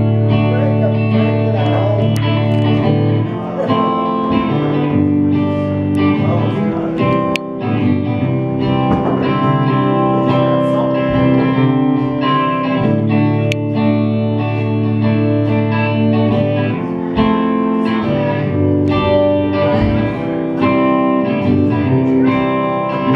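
A live rock band playing an instrumental passage: electric guitar chords ring out over bass guitar and drums, with occasional sharp cymbal or drum hits.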